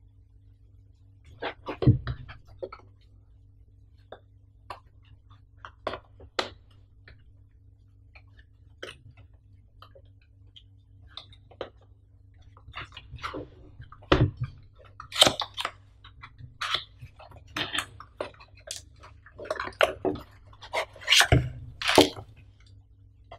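Cardboard packaging of a desktop microphone stand being opened by hand: scattered taps, clicks and short scrapes of card, growing busier toward the end as the inner tray slides out. Three heavier thumps on the table, about 2, 14 and 21 seconds in, over a faint steady low hum.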